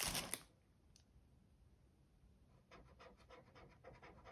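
A plastic parts bag crinkles briefly, then faint scratching and light clicks of small plastic Lego pieces being picked through by hand.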